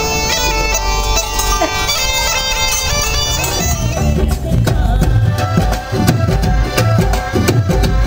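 Bulgarian folk music: a bagpipe melody over a steady drone, which breaks off about four seconds in for drum-led folk music with sharp, regular drumbeats and heavy low thumps.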